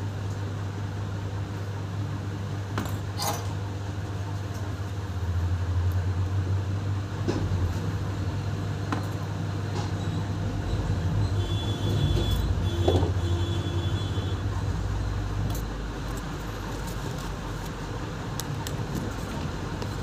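A steady low hum, with a few light clicks and taps from small repair tools such as tweezers handled on a workbench.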